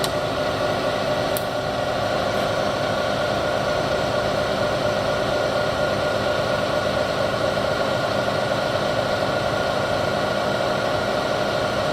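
Bridgeport 1.5 HP variable-speed vertical milling machine running steadily, its head driving the spindle while the quill power feed takes the quill down; a steady mechanical whir and hum, with a faint click about a second and a half in.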